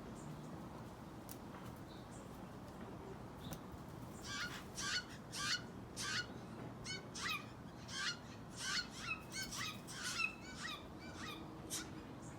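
Steller's jay fledgling calling: about fifteen short, harsh, downward-sweeping calls in quick succession, about two a second, starting about four seconds in and stopping shortly before the end.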